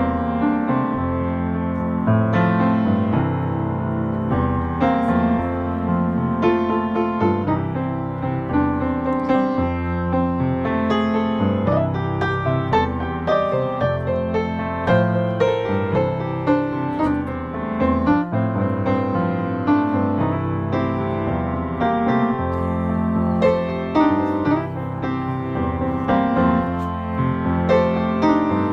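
Background solo piano music, many notes over held chords at a steady level.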